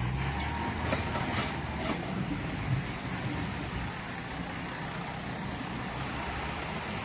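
Twelve-wheel truck on the move: engine running steadily with road noise, and a couple of short knocks about a second in.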